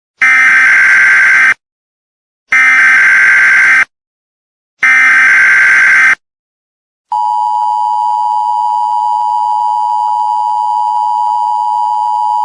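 Emergency Alert System tones: three short, identical bursts of digital SAME header data with brief gaps between them, then the steady two-tone EAS attention signal from about seven seconds in.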